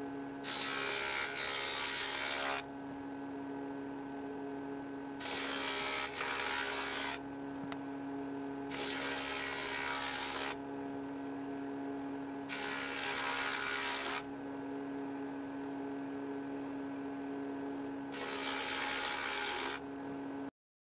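A woodworking machine's cutter runs with a steady hum while boards are fed through it five times, each cut a hiss of about two seconds. These are the rebates and notches being cut in beehive super boards.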